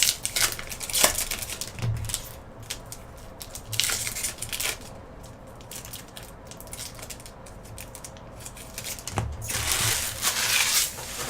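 Foil hockey card pack wrappers crinkling and tearing in several irregular bursts, the longest near the end, as packs are opened.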